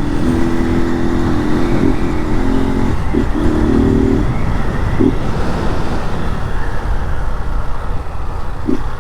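Honda Start motorcycle's single-cylinder engine, running without an air filter, pulling steadily under way with wind rushing past the microphone. Its note holds steady for about four seconds, then drops back under the wind and road noise, with a few short blips later on.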